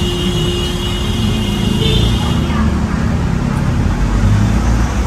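Steady low rumble of road traffic, with a steady hum that stops about halfway through.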